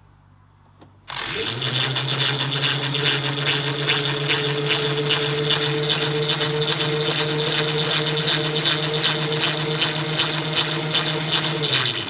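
Electric scooter hub-motor wheel turning the motorbike's back wheel for the first time. About a second in, it starts suddenly and quickly spins up to a steady hum with a rattle over it. It cuts off just before the end.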